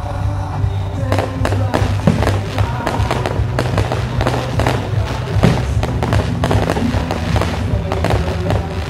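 A rapid series of fireworks bangs and crackles from aerial shells bursting, starting about a second in and coming several times a second, over loud music.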